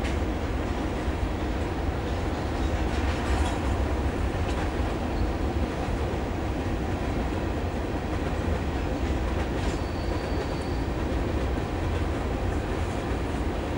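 Freight train of covered hopper cars rolling past with a steady rumble and scattered wheel clicks over the rail joints. About ten seconds in, a wheel gives a brief high squeal.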